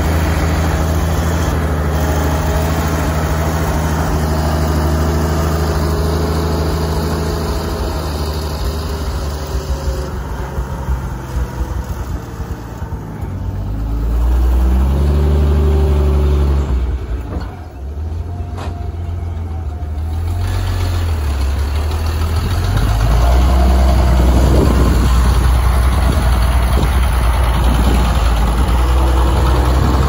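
1945 Hough wheel loader's engine running while it loads dirt with its bucket. The pitch rises and falls as it revs up under load about halfway through, and the engine eases briefly before running harder and louder for the last few seconds.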